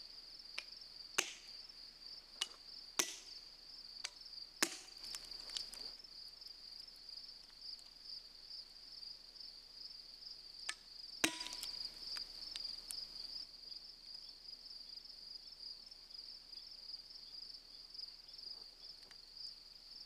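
Light hammer taps on steel feathers and wedges driven into a granite block to split it: a handful of sharp, scattered strikes, the loudest about eleven seconds in. Behind them, insects trill steadily at a high pitch.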